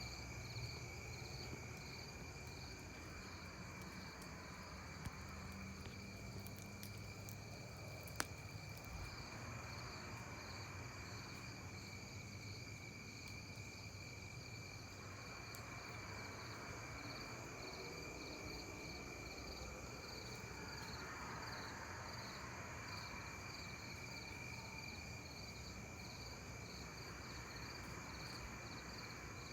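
A low, rushing roar like distant highway traffic, heard from all directions and pulsating, swelling and easing in slow waves about every five seconds; its source is unexplained. Night insects trill steadily over it, and two faint clicks come about 5 and 8 seconds in.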